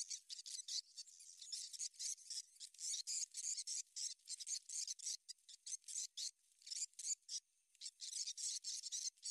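Grass and reed stems brushing and scraping along a small boat as it is poled through a grassy swamp, making a run of quick, irregular, high rasping hisses.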